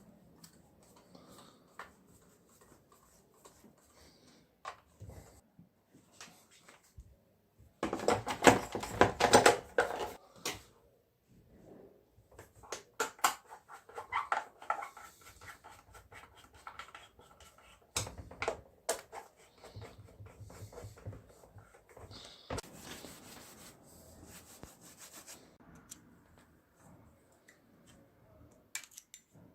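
Hand-working sounds on chainsaw parts: intermittent bursts of scraping and rubbing with scattered clicks and taps, the longest and loudest burst about eight seconds in.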